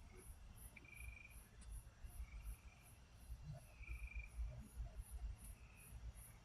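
Crickets chirping in a steady, even rhythm of about three high chirps a second, faint, over a low rumble.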